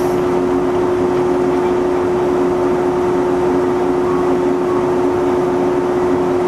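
A stopped yellow electric local train humming steadily at the platform: its onboard equipment holds a constant low tone.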